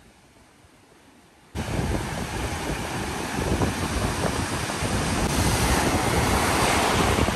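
Faint background noise that switches abruptly, about one and a half seconds in, to loud wind buffeting the phone's microphone over breaking surf.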